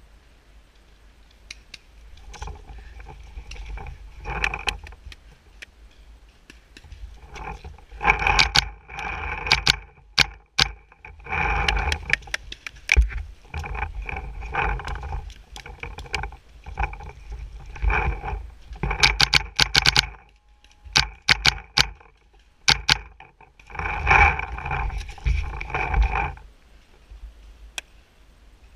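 Mac Dev Clone VX paintball marker firing, close up, in single shots and quick bursts of sharp cracks. A pitched whirr comes with the bursts.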